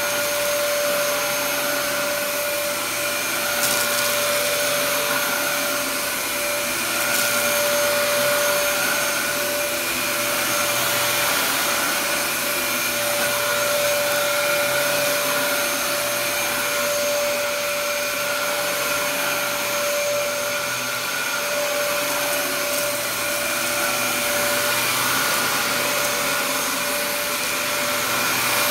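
Dyson DC07 upright vacuum cleaner running on carpet: a steady motor whine over the hiss of rushing air as it picks up scattered dry debris.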